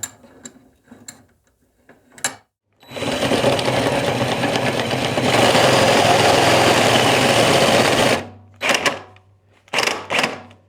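Electric drill running while drilling for about five seconds, getting louder partway through, then stopping abruptly. A few light handling clicks before and after.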